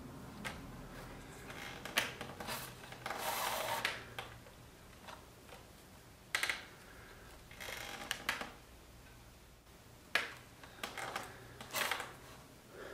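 Hand saddle-stitching leather: thread pulled through the stitching holes of a holster in several short scratchy pulls, with a few light clicks. A faint steady low hum sits underneath.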